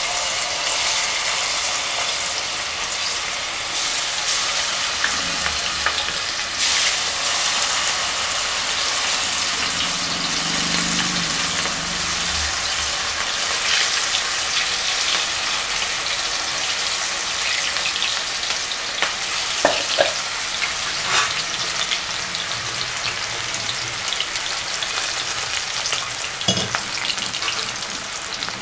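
Hot oil sizzling steadily in a kadai as marinated cauliflower pakoda pieces deep-fry, with a few sharp clicks scattered through.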